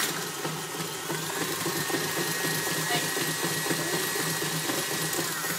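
Electric tilt-head stand mixer running steadily, its motor humming with a high whine that rises a little about a second and a half in, then winds down at the end as it is switched off.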